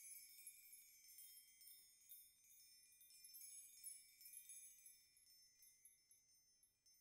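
Very faint, high-pitched chimes tinkling and ringing on, slowly fading away: the tail end of a Christmas song.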